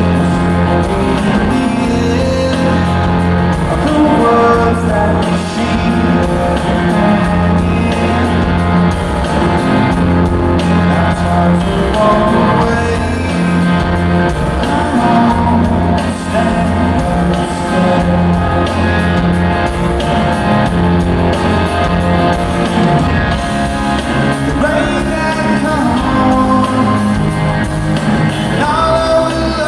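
Live rock band playing in a large hall, with a man singing over guitars and a steady bass line.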